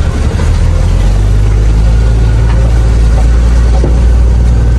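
Truck diesel engine running steadily at low revs with a deep, even hum while the truck manoeuvres slowly in reverse.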